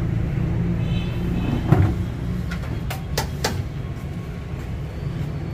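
A metal ladle clinking and knocking against a large chickpea cooking pot and serving plates, a few sharp strikes, the loudest a little under two seconds in, over a steady low rumble.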